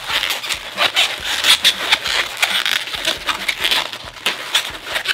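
Inflated red 260 latex modelling balloons rubbing against each other in the hands as two balloon seams are rotated and twisted together to lock them, a dense run of short scratchy rubs.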